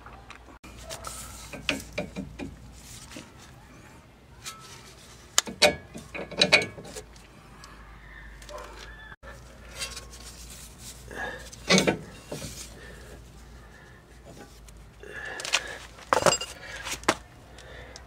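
Scattered metal clinks and knocks from a wrench and steel hardware as a car's sway bar link is unbolted and its nuts handled, in short irregular bunches.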